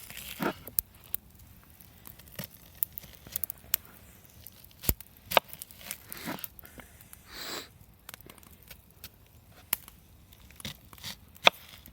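Knife slicing through a raw onion: irregular crisp cuts and snaps with a few longer scraping tears.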